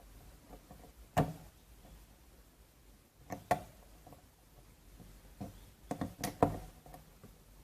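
A scattering of sharp clicks and small knocks from objects being handled on a work surface: a single click, then a close pair, then a quick cluster near the end.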